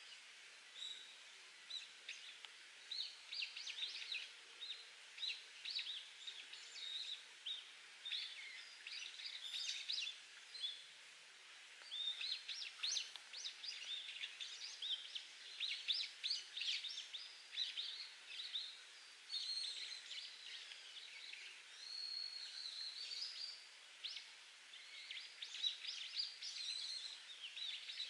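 Wild songbirds singing continuously in rapid chirps and trills, over a faint steady hiss of trickling spring water.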